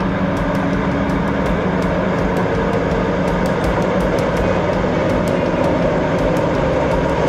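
Diesel switcher locomotive running steadily as it moves passenger coaches slowly through a rail yard, its engine droning, with frequent light ticks over the top.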